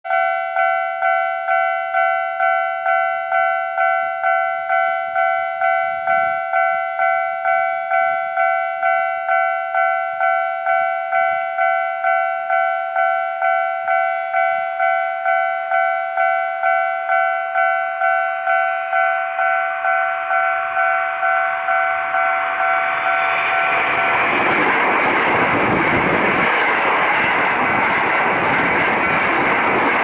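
A railway level-crossing warning bell rings steadily, about two strokes a second. From about twenty seconds in, a Hankyu 9300 series train's running noise swells and drowns out the bell over the last several seconds as the train passes.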